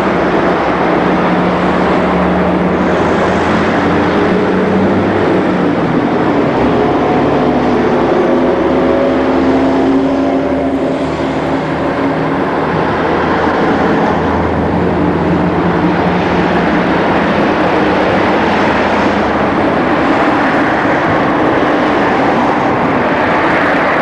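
Zillertalbahn diesel railcar running while it stands at the platform: a steady loud rumble with a faint hum that drifts slowly up and down in pitch.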